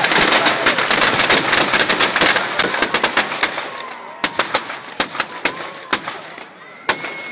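Fireworks bursting: a dense, rapid crackle that thins out over a few seconds into scattered sharp pops.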